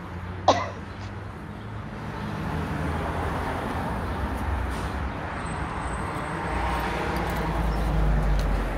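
Street traffic: a passing vehicle's rumble and road noise build up and are loudest near the end. There is one short, sharp sound about half a second in.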